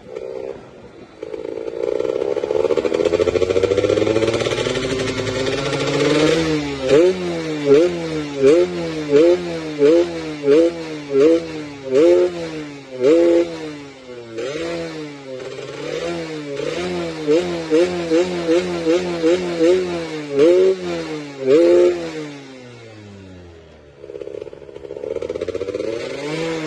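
Yamaha F1ZR two-stroke single-cylinder motorcycle engine climbing steadily through the revs, then revved in rapid throttle blips, a little more than one a second, for about fifteen seconds. Near the end it drops back and runs steadier at a lower pitch.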